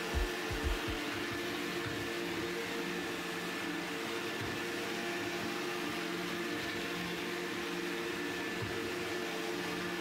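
iRobot Roomba robot vacuum running across a tile floor: a steady motor and fan hum with a few fixed tones. A few low thumps come in the first second.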